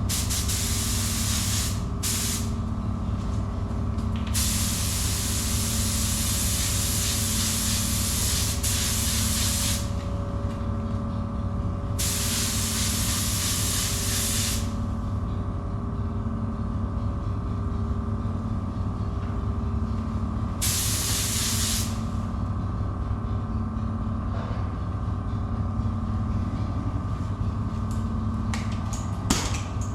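Paint spray gun spraying clear coat: five trigger pulls of high, even hiss, the longest about five seconds, over a steady low machine hum.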